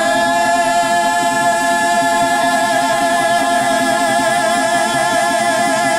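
Mariachi singers holding one long sung note together on the word "Me", unaccompanied, with vibrato coming in partway through.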